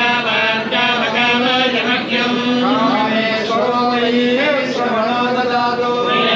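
Vedic chanting in Sanskrit by male voices, recited on a few steady held pitches with small rises and falls and no pauses.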